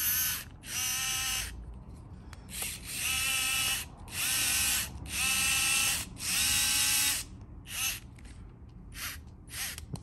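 Vessel 220USB cordless electric screwdrivers running in short bursts: the motors whir for half a second to a second at a time, about eight times, as the switches are pressed and released, then give three brief blips near the end.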